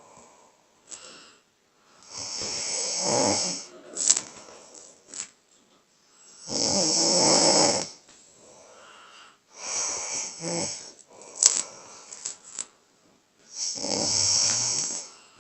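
A person snoring loudly: four rasping snores about four seconds apart, with a few short sharp clicks between them.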